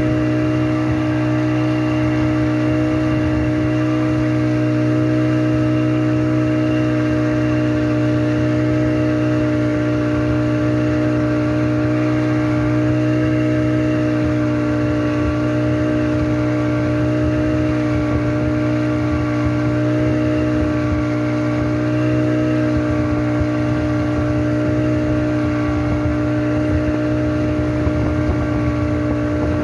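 Speedboat engine running steadily at constant speed while towing, a steady drone holding one pitch.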